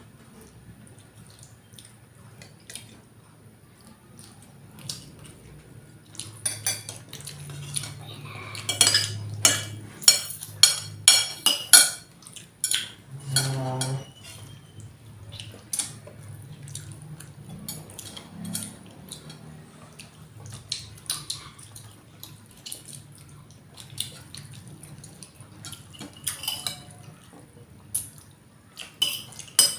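Spoon and fork clinking and scraping against a plate and bowl while eating, in irregular clusters of sharp clinks with quieter gaps between.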